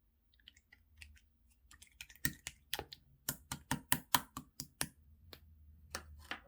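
Clear slime being pressed and squished by hand, giving a run of crisp clicking pops about four a second from about two seconds in, with two more pops near the end.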